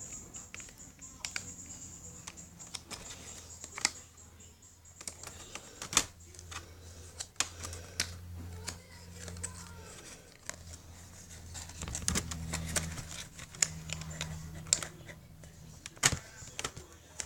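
Scattered sharp plastic clicks and taps as a laptop keyboard is handled and pressed into its clips in the laptop base.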